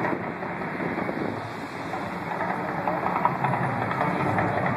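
Steady noise of road traffic passing.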